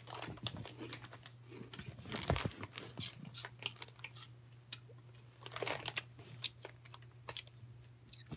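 Handling noise on a covered phone microphone: scattered clicks, crackles and rustles, louder rubbing about two seconds in and again near six seconds, over a steady low hum.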